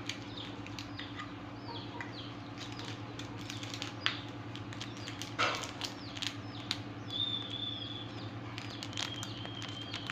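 Small birds chirping again and again with short falling notes, over a steady low hum, while small foil and plastic jewellery packets rustle and click as they are handled, loudest twice near the middle.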